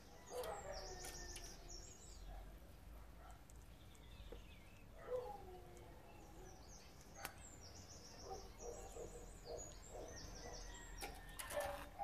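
Faint bird calls from Eurasian bullfinches: soft whistles that fall in pitch, near the start and again about five seconds in, and quick runs of short high chirps near the start and from about eight seconds on. A few sharp clicks fall in between.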